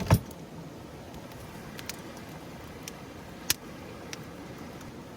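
A heavy thump just after the start, then two sharp clicks about a second and a half apart, over steady low background noise.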